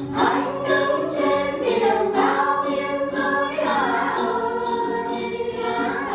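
A song with singing voices over backing music, the melody line bending through a sung phrase, and a jingling beat about two to three times a second.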